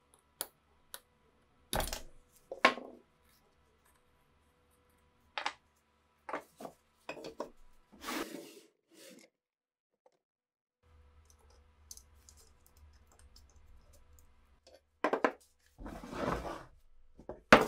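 Scattered metal clicks, taps and short scrapes of small steel rifle parts being worked against a steel bench vise. A longer scraping rasp comes shortly before the end, while the vise body is turned by hand, and a sharp click at the very end is the loudest sound.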